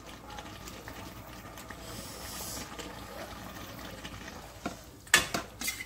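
Pot of thukpa broth simmering with a soft, steady hiss, broken near the end by a few sharp knocks.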